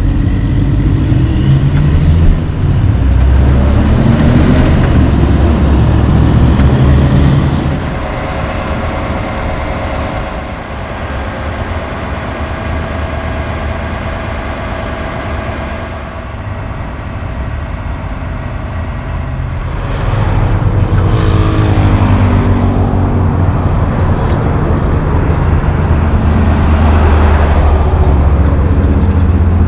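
Heavy diesel tractor-trailers driving past on the road, engine pitch rising as they pull away and accelerate. A quieter, steadier engine hum fills the middle stretch.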